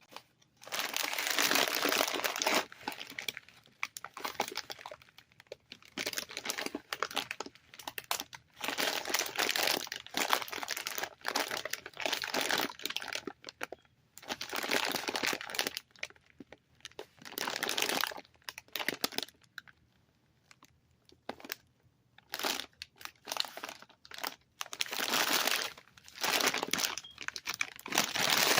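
Cough drop packaging crinkling as it is handled, in a series of bursts one to five seconds long with short pauses between them.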